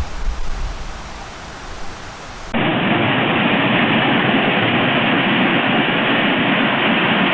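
Steady rushing of water, quieter at first, then cutting abruptly about two and a half seconds in to a louder, duller rush.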